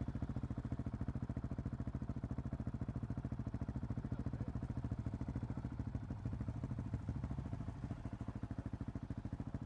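KTM 690 SMC R single-cylinder engine idling through a Leovince decat exhaust, with a steady, even chuff of firing pulses.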